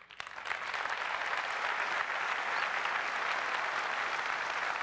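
Large audience applauding, swelling up within the first half second and then holding steady.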